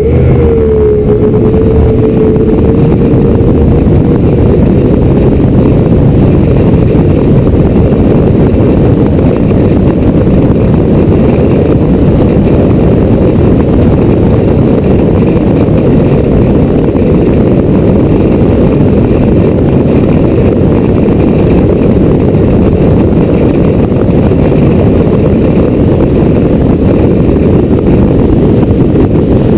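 Race boat running at speed: loud, steady engine noise mixed with heavy wind rush on the deck-mounted microphone. An engine pitch wavers and settles in the first couple of seconds, then the sound holds steady.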